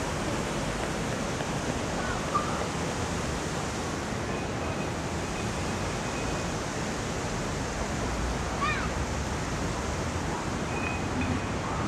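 Steady rushing noise of street traffic with wind buffeting the camcorder microphone, and a few faint distant voices now and then.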